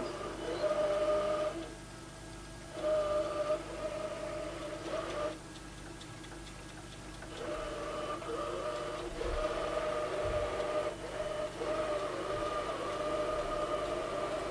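Clever&Clean Z-series robot vacuum running: a steady motor whine with a low hum. It drops away twice, about two seconds in and again about five seconds in, then comes back.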